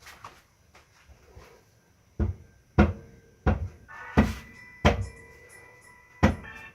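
Six sharp metallic knocks, spaced under a second apart with a longer gap before the last, like hammer blows on metal parts during a Borg Warner Velvet Drive marine transmission rebuild. From the middle blows on, a steady ringing tone hangs on.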